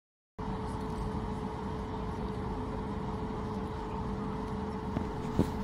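Cabin noise inside a Boeing 737 MAX 8 on the runway before the takeoff roll, with its CFM LEAP-1B engines at low power. A steady hum and rumble with a steady whine cuts in abruptly about half a second in.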